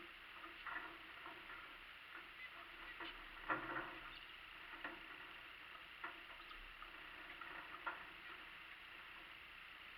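Small aviary birds (zebra finches and canaries) giving short, scattered calls, about seven in all, the loudest about three and a half seconds in, over a faint steady hiss.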